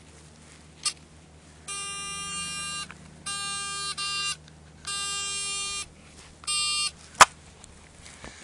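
Metal detector buzzing four times, each buzz about a second long, as it passes over a metal target in the dug hole. A sharp click comes near the end.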